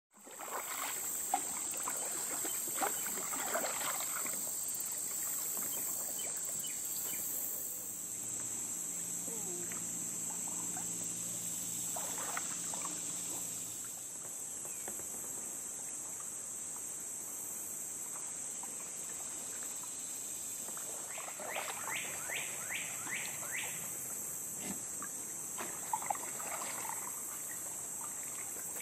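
Steady high-pitched drone of insects in the swamp, with the light splash and drip of kayak paddles now and then.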